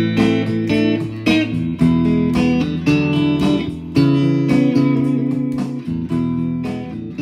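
Instrumental music led by plucked guitar notes over low sustained tones, gradually getting quieter toward the end.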